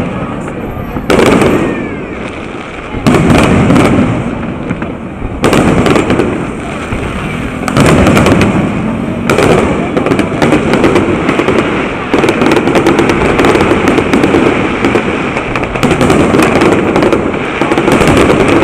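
Aerial fireworks bursting: loud booms about every two seconds with crackling trails, building in the second half into a dense, continuous barrage of crackling reports.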